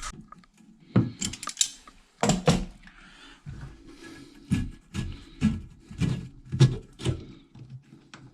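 Irregular knocks, clicks and rubbing of hands and tools on a plumbing fitting as a leaking flexible hose connection is worked on and undone to get at its washer.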